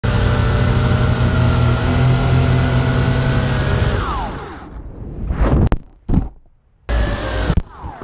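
Quadcopter's electric motors and propellers running steadily with a whine of several tones, their pitch gliding down about four seconds in. Then come a few short, loud bursts of rushing noise and knocks with gaps between them.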